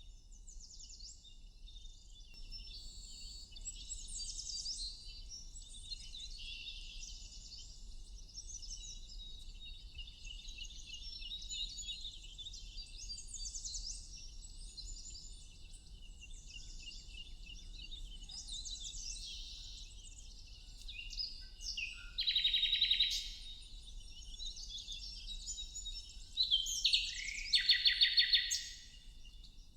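Several wild birds chirping and singing in overlapping high, quick phrases over a faint low background hum. A louder, nearer call comes about three-quarters of the way in, and a louder burst of song near the end.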